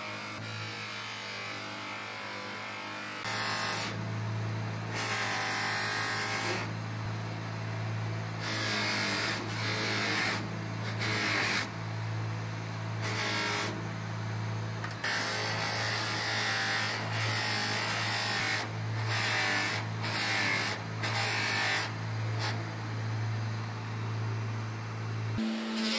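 Electric motor of a buffing machine running with a steady hum while a metal meat-grinder part is pressed against the spinning cloth buffing wheel. The rubbing hiss of the workpiece on the wheel rises and falls again and again, about once a second in the second half, and the motor gets louder about three seconds in.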